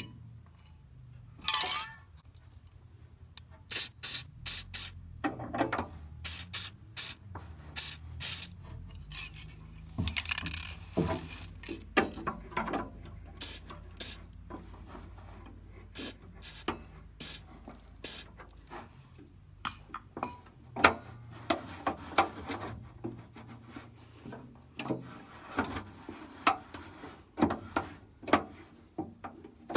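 Irregular sharp clicks and knocks of objects being handled, with stretches of scraping or rubbing in between.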